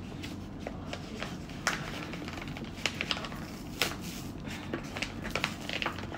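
A paper flour bag rustled and crinkled by hand, with a scattering of sharp taps and clicks, the strongest about a second and a half, three and four seconds in, over a low steady hum.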